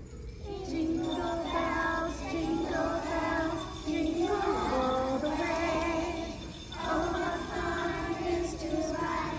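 Group of young children singing a Christmas song together, in phrases a few seconds long with short breaks between them.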